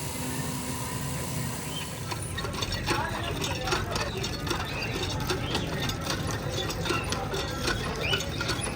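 Irregular mechanical clicking and clattering, starting about two seconds in, over a steady background hum.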